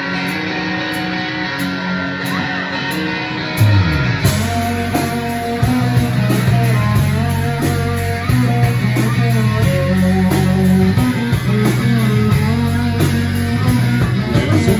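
Live rock band playing the instrumental opening of a song: electric guitar notes at first, then the full band with bass and drums comes in loudly about four seconds in.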